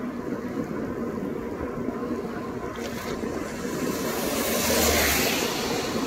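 Steady rush of wind on the microphone and wet tyre noise from a bicycle ridden in the rain on a wet deck. A louder hiss swells up a few seconds in, peaks about five seconds in, then eases.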